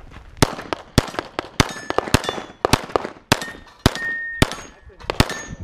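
A string of handgun shots, about two a second, with steel plate targets ringing briefly as hits land on them.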